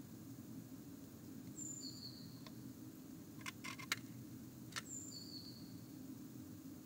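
Blue tit's claws scratching and tapping on the wooden inside of a nest box, a quick cluster of sharp clicks about halfway through, over a steady low electrical hum. Twice, a pair of high, thin bird call notes sounds, each a short high note followed by a slightly lower one.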